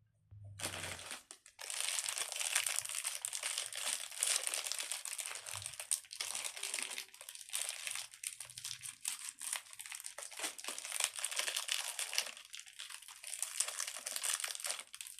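Plastic blind-bag packaging being crinkled and handled as it is opened, a dense, continuous crackling that starts about half a second in.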